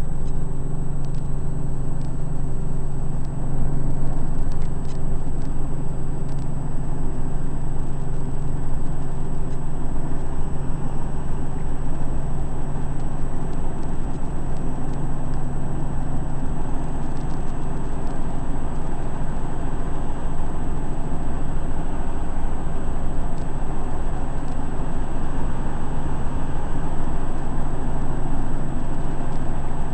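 Helicopter engine and rotor noise heard from inside the cabin: a loud, steady drone as the helicopter climbs out after lift-off.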